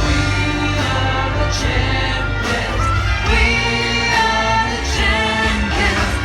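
Music with a choir of voices singing over a heavy, steady bass.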